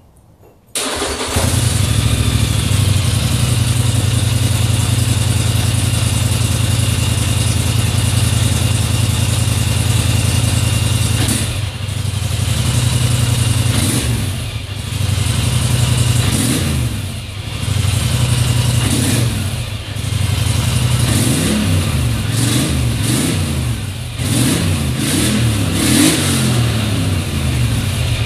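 A 2015 Polaris Scrambler XP 1000 ATV's 952 cc parallel-twin engine starts up about a second in and idles steadily. Over the second half it is revved in repeated throttle blips, its exhaust note rising and falling.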